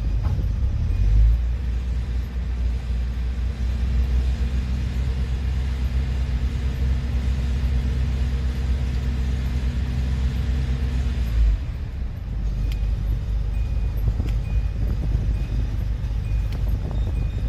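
Hyundai Santa Fe's 2.0-litre turbo-diesel engine idling with the air conditioning running, heard from inside the cabin as a steady low rumble with a hum. The hum drops away about two-thirds of the way through, leaving the rumble and a faint, regular ticking.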